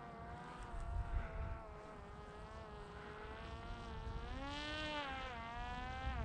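Parrot Disco fixed-wing drone's electric pusher propeller buzzing in flight. Its pitch wavers throughout, then rises and falls back about four to five seconds in.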